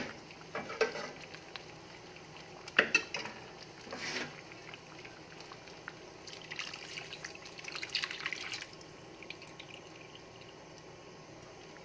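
Coconut milk being poured into a cooking pot, a splashing pour lasting about two seconds in the second half, with a few light knocks of a utensil against the pot before it.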